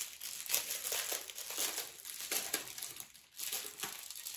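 Packaging of embroidery kits crinkling and rustling as it is handled, in quick irregular bursts with a short lull about three seconds in.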